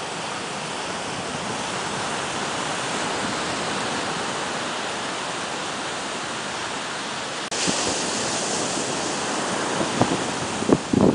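Steady rushing wind noise with no distinct events. About seven and a half seconds in it turns abruptly brighter and hissier.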